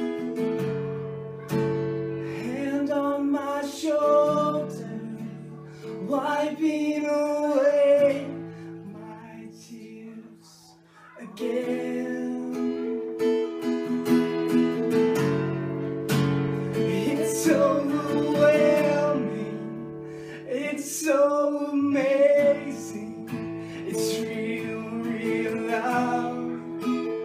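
Cutaway acoustic guitar strummed, with a man singing over it in stretches. The playing briefly falls away about ten seconds in, then picks up again.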